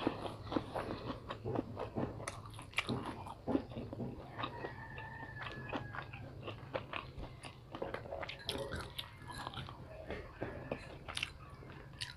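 Close-miked chewing and biting of deep-fried fish balls, with irregular crunches and wet mouth clicks.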